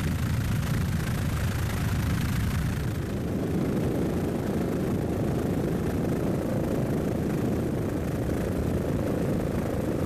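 Steady drone of a helicopter's engine and rotor heard from inside the cabin, changing in tone about three seconds in.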